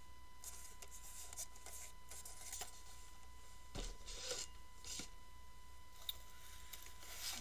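Hands rummaging in a cardboard shipping box and handling boxed figures: faint scattered rustling and scraping of cardboard and packaging, with a soft knock about four seconds in.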